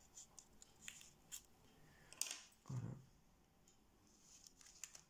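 Faint rustling and small crackles of thin kami origami paper handled against a pencil as the squirrel's tail is rolled around it to curl it, with a louder crinkle about two seconds in.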